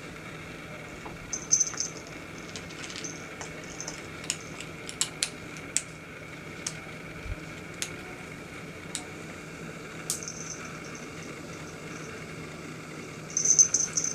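Scattered light clicks and short scratchy rustles from a kitten moving about, over a steady low hum.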